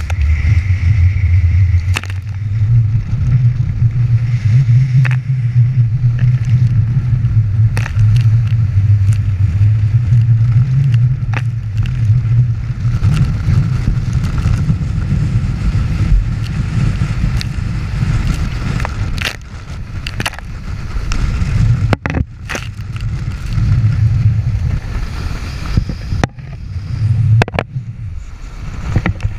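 Strong wind buffeting the camera microphone as a rumble, over the rush and hiss of water and spray streaming past the hull of a Nacra 14 Squared catamaran sailing fast. Frequent short sharp taps and knocks come through it.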